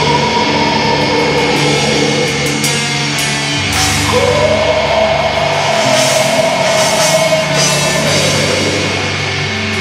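Black metal recording: distorted guitars and drums playing at a steady, loud level. About four seconds in, a high held note slides up and sustains for several seconds.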